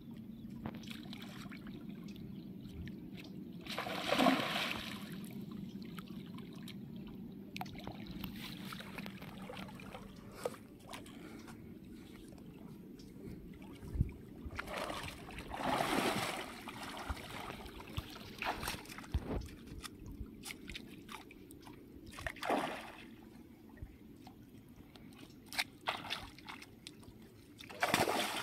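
Water splashing in several bursts as a hooked rohu thrashes at the surface on the line, with lapping and sloshing in between. The last and largest splash comes near the end as the fish churns in the shallows.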